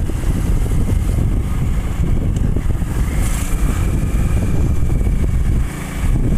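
Wind rumbling on the microphone of a moving Hero Glamour motorcycle, its 125 cc single-cylinder engine running underneath with road noise. The rumble eases briefly near the end.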